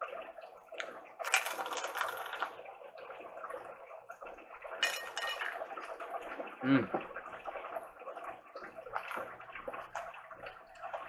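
Close-miked chewing of crunchy fried corn-tortilla tacos: crackling bites about a second in and again around five seconds, with wet mouth clicks between. A short hum from the eater comes about two-thirds of the way through.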